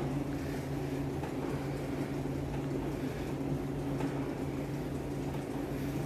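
Steady low mechanical hum with a constant pitch.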